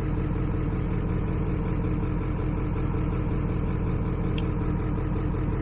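An engine idling steadily, a low, even rumble; a single small click about four seconds in.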